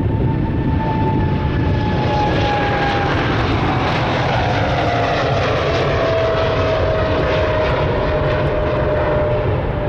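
Boeing 777F freighter's twin General Electric GE90 turbofans at takeoff thrust as the aircraft rotates and climbs away. A loud, steady deep rumble with an engine whine that falls slowly in pitch as it passes.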